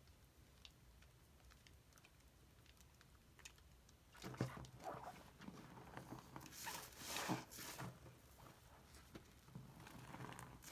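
Bath slime being squeezed and kneaded by hand in soapy lather, with faint crackling of bubbles at first, then irregular wet squelches from about four seconds in.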